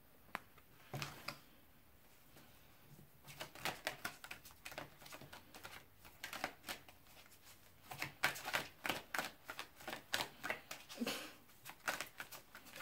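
A deck of oracle cards being shuffled by hand: a few soft clicks at first, then from about three seconds in, runs of quick card slaps and clicks in bursts.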